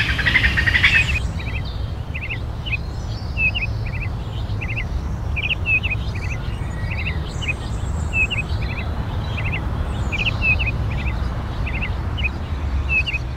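Forest ambience: a bird chirping in short repeated notes, several every second or two, over a steady low rumble. It opens with a brief bright burst of noise, the loudest moment.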